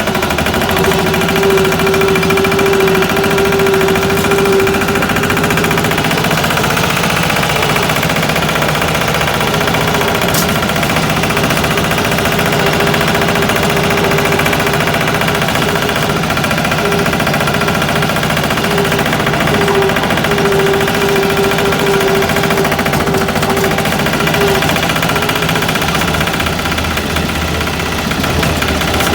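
Small single-cylinder 'patpat' engine running steadily, with a whine that comes and goes over the engine beat.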